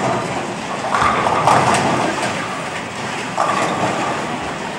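Bowling alley din: a steady rolling rumble of bowling balls on the wooden lanes, with a few sharp clatters of pins being hit about two seconds in, over faint background voices.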